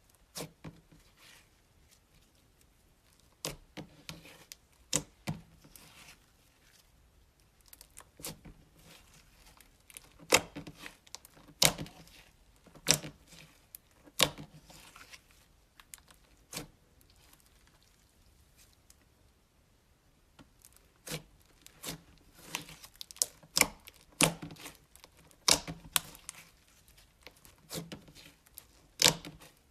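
Slime being squeezed and poked by hand, giving irregular sharp pops and clicks, some in quick clusters, with a quiet stretch in the middle.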